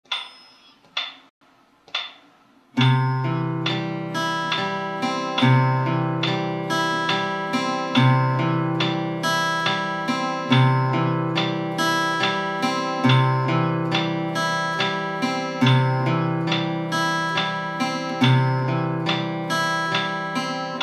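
Steel-string acoustic guitar fingerpicked in a steady arpeggio pattern in triple time (a 3/4–6/8 fingerpicking exercise), a low bass note opening each bar about every two and a half seconds. It begins after three sharp clicks a second apart and stops abruptly at the end.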